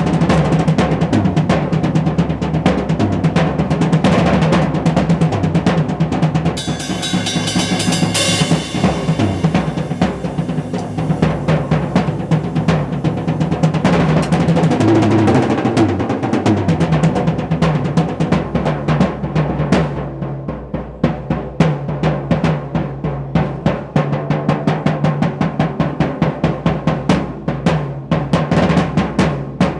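Acoustic drum kit played hard and fast in a solo: dense rolls across the bass drum and snare, with a cymbal crash about seven seconds in. The last third settles into a run of fast, evenly spaced strokes.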